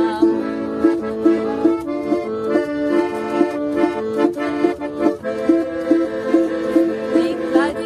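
Instrumental passage of a band playing a lively song, sustained melody notes over a short accompaniment note repeating at an even beat, without singing.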